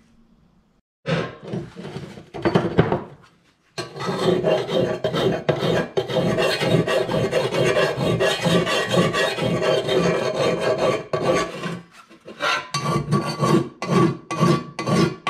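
Flat file stroked back and forth across a hand-formed sheet-steel panel: quick rasping strokes in short runs, then a long steady run from about four seconds in to about twelve, a brief pause, and more strokes near the end. The file is run over the metal to show up its high spots.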